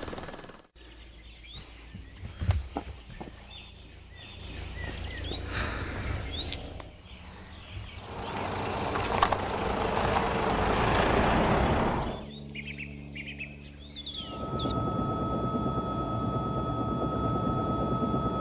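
Outdoor background noise with a low rumble and birds chirping, broken by several abrupt cuts; from about two-thirds of the way in a steady hum with a high tone sounds under it.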